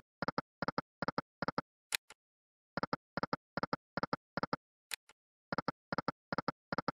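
Video-slot sound effects: the reels stopping one after another, each with a short pitched double tick, in three quick spins, with a brief high blip between spins.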